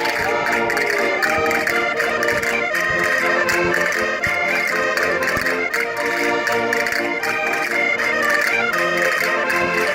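Concertinas (Minho diatonic button accordions) playing a traditional folk dance tune, many reedy held notes changing in quick succession over a steady beat.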